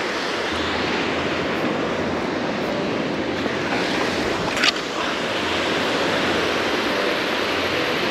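Small waves breaking and washing onto a sandy beach: a steady rush of surf, with one brief sharp swish a little over halfway through.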